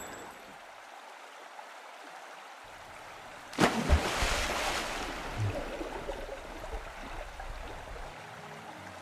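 A body falls into a swimming pool with a sudden splash about three and a half seconds in, after a few seconds of low hiss. The water then churns and bubbles, fading gradually as it settles.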